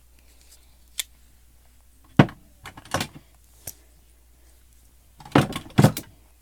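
Irregular clicks and knocks of pocket knives and other small hard objects being handled and set down, with a louder cluster of knocks near the end.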